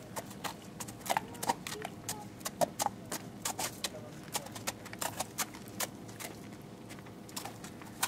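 A horse's hooves stepping on frozen, crusted snow and ground: irregular sharp clicks and crunches, several a second.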